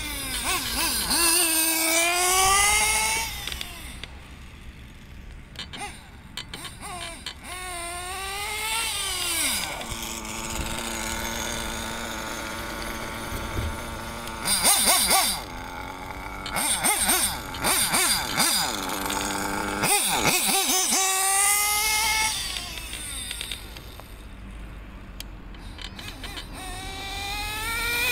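Hot Bodies 1/8-scale nitro RC buggy's small glow engine revving hard again and again, each run a whine that climbs in pitch as the buggy accelerates, with steadier running between the runs.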